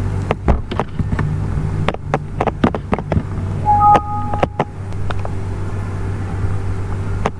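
Steady low electrical hum with a series of sharp clicks and knocks, and a short two-tone electronic beep about four seconds in.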